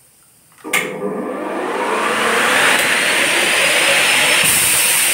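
Elumatec AKS 134 notching saw switching on with a sharp click just under a second in, its large circular blade then spinning up with a rising whine and running on at speed, the sound getting brighter and hissier near the end.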